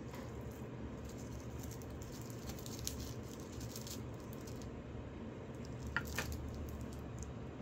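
Wooden spoon scraping and scooping stir-fried rice in a nonstick pan, with light scattered clicks and crackles, and two sharp taps about six seconds in as the spoon is set down in the pan. A low steady hum runs underneath.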